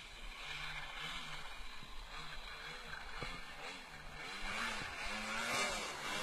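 Snowmobile engine running at a distance, its pitch rising and falling as the throttle is worked. It grows louder over the last couple of seconds as the machine turns and throws up snow.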